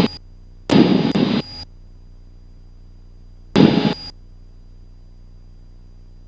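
Cessna cockpit audio feed with two short bursts of noise, about a second and half a second long, that switch on and off abruptly like a squelch opening and closing. Between them there is only a low steady hum and a faint thin high tone.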